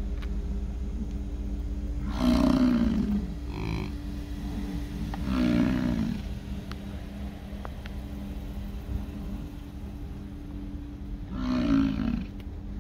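American bison bull bellowing three times, each call deep, pitched and about a second long, about two seconds in, around five and a half seconds and near the end. This is the bellow bulls give during the late-summer rut.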